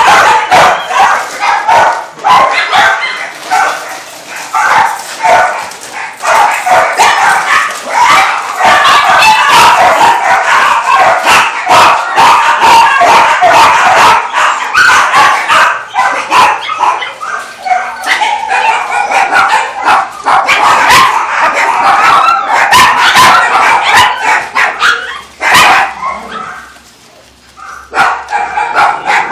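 Many dogs in a shelter barking and yelping all at once, a continuous overlapping din that eases briefly near the end before picking up again.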